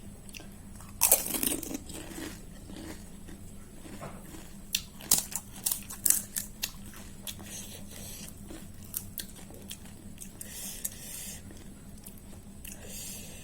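A crisp golgappa (pani puri) shell is bitten with a loud crunch about a second in. Crunchy chewing follows, with a cluster of sharp crackles around the middle and two short breathy hisses near the end.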